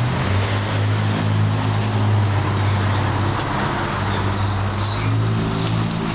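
A motor vehicle's engine running close by, a steady low hum, under street traffic noise.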